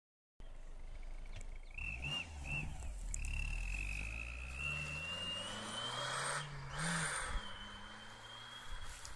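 Mitsubishi Lancer's engine running with a turbo whistle sounding over it: a high whistle chirps a few times, then holds a long tone that rises slowly with the revs. About two-thirds through it breaks off in a brief rush of air, then comes back steady as the engine settles.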